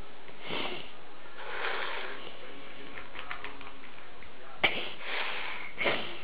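Cats eating dry kibble from a plastic bowl: irregular crunching and sniffing at the food. Two sharp knocks stand out near the end, about a second apart.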